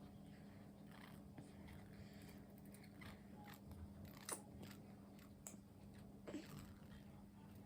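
Faint mouth sounds of a six-month-old baby drinking milk: irregular small sucking clicks, the loudest about four seconds in, over a steady low hum.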